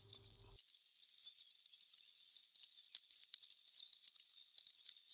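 Near silence: faint hiss with scattered light ticks and scratches.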